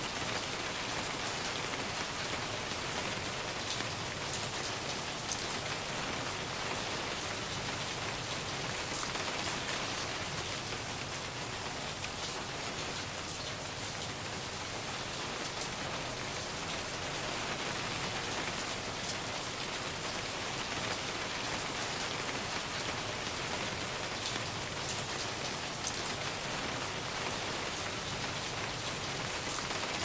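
Steady rain falling: an even hiss with scattered sharp ticks of individual drops.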